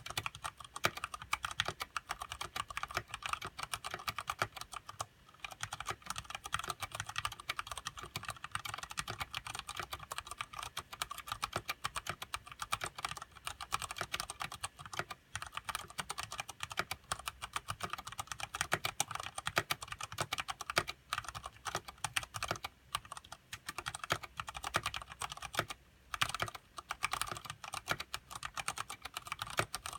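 Continuous fast typing on a mechanical keyboard with Cherry MX Brown switches and thick PBT keycaps: a dense run of keystroke clacks with a few brief pauses.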